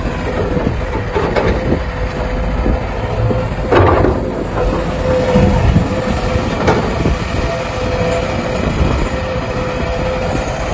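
Excavator's diesel engine running with a heavy low rumble and a steady whine, with a few metallic clanks from the machine working, the loudest about four seconds in.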